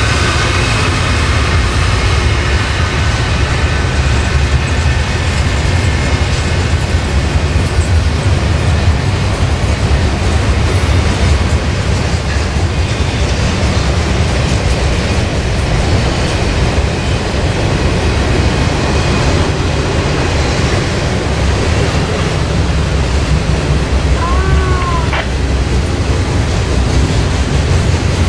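Norfolk Southern intermodal freight train rolling past, its cars making a steady, heavy rumble on the rails.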